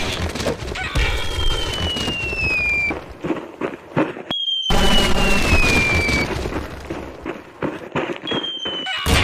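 Sound-effect explosions with crackling debris, repeated about three times, each with a high whistle falling in pitch over a second or two.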